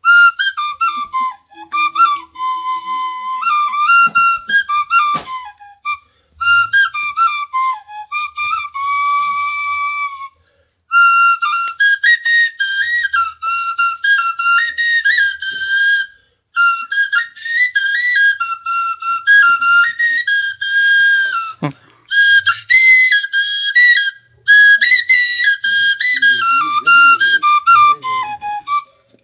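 A small bamboo flute, end-blown and held vertically, playing a high, breathy folk melody that steps quickly up and down. It comes in phrases broken by short pauses for breath.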